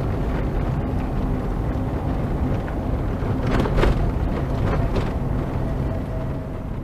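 A car driving, heard from inside: steady engine and road noise, with a few short knocks a little past halfway.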